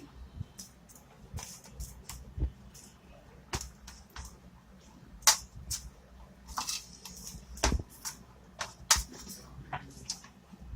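Dough being kneaded by hand in a bowl: irregular sharp knocks and clicks as the dough is pressed and worked.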